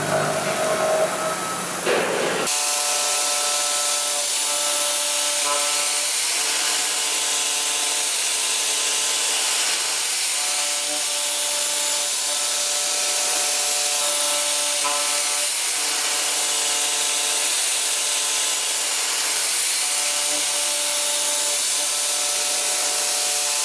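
Vertical machining center milling a metal mold, first roughing with a 32 mm cutter at 1,440 rpm. About two and a half seconds in the sound changes to a semi-finishing pass at 4,000 rpm: a steady hiss with a whine of several tones that comes and goes in long stretches as the cutter works across the surface.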